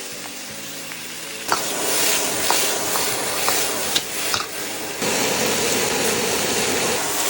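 Raw, unblanched chicken pieces going into hot oil: a sudden loud sizzle starts about a second and a half in, with scattered clicks and scrapes as they are stir-fried, and the sizzle grows louder again about five seconds in.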